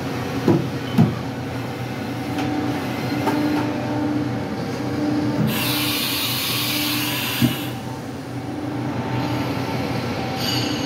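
Haas VF-0 CNC vertical machining center running with its axes traversing: a steady machine hum with a pulsing tone, a few short knocks near the start and again about two-thirds of the way through. A loud hiss sounds for about two seconds past the middle.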